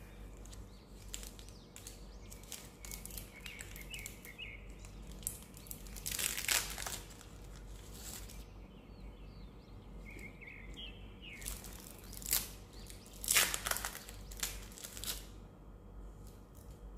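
Thin plastic wrappers of individually packed Lotus Biscoff cookies crinkling and tearing as they are pulled open by hand. The crackling comes in bouts, loudest about six seconds in and again from about eleven to fifteen seconds.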